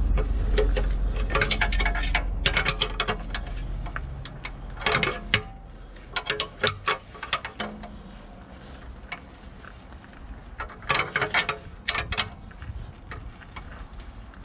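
A 19 mm ratchet spanner clicking in short bursts as it is worked back and forth, tightening the nut of a puller to draw a stuck rear lower suspension bush out of the hub carrier. A low rumble fades out about four seconds in.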